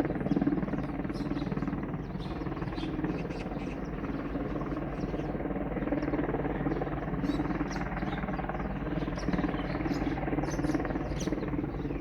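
Helicopter hovering in one place, its rotor and engine giving a steady, even drone with a fine, fast pulsing. Small birds chirp repeatedly over it.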